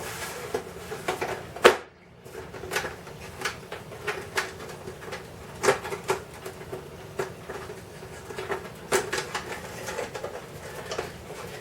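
Irregular small clicks, taps and knocks from a clock being handled and worked on by hand, with one sharper knock about two seconds in.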